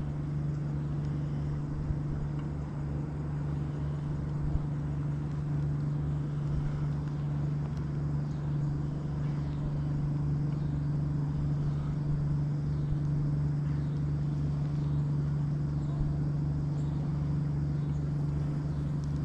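A boat motor running with a steady, unchanging hum.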